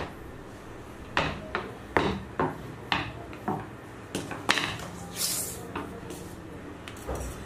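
Light knocks and taps of hands and tools on a hard worktop, about ten of them at an uneven pace, as fondant is cut and handled, with a brief rustle about five seconds in.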